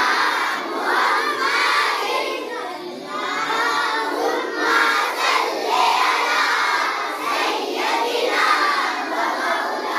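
A group of schoolchildren singing a naat together, voices only.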